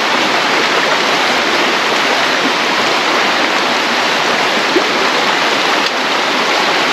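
River water rushing steadily over rocks, a close, loud, even rush.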